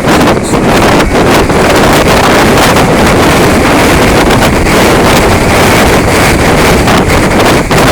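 Typhoon-strength wind blowing hard across the microphone: a loud, unbroken rush of wind noise with gusts overloading the mic.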